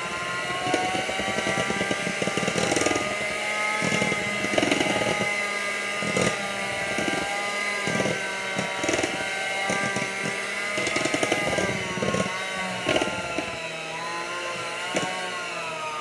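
Handheld electric mixer running steadily, its beaters churning thick snickerdoodle cookie dough in a bowl, with scattered clicks and clatters throughout. The motor whine wavers and dips a little in pitch in the last few seconds as the stiffening dough loads the beaters.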